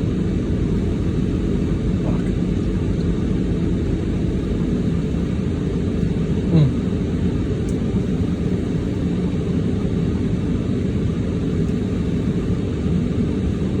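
Steady low rumble inside a car's cabin, typical of the engine running at idle, with one brief short sound about halfway through.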